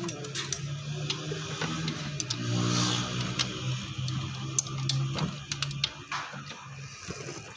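Hand tools clicking and clinking on metal while a starter motor is fitted to a car engine, the clicks scattered and irregular. A steady low hum runs underneath and fades out about six seconds in.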